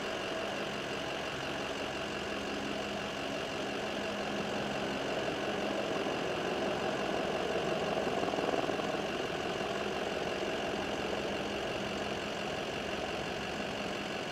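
A vehicle engine idling steadily, an even hum that swells slightly about midway through.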